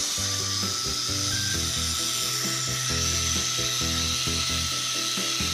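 Philips bagless vacuum cleaner running steadily: an airy hiss with a thin high motor whine. Background music with held low notes plays along with it.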